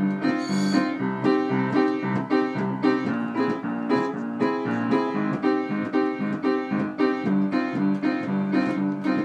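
Upright piano played with repeated chords struck in a steady rhythm, about two a second.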